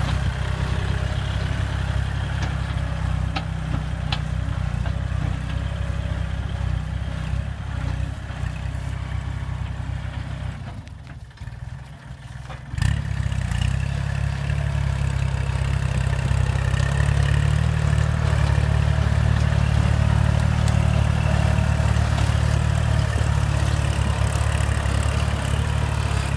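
Kubota L3608 tractor's diesel engine running steadily while plowing. It drops away for about two seconds near the middle, then comes back abruptly and louder.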